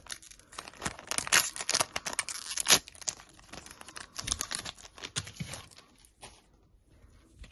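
A Ride Chemy trading card booster pack's plastic wrapper being torn open by hand, with dense crinkling and tearing for the first few seconds, then scattered crinkles that die away.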